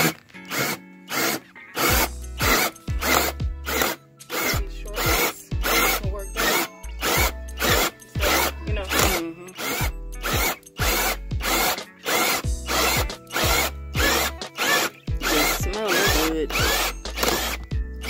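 Background music with a steady beat and a bass line coming in about two seconds in, laid over a cordless drill with a hole saw cutting into a wooden board.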